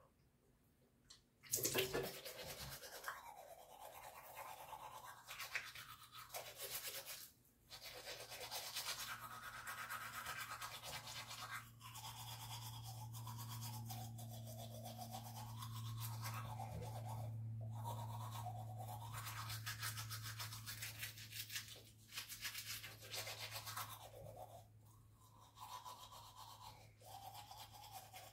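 Toothbrush scrubbing teeth, faint and continuous, starting about a second and a half in after a brief quiet.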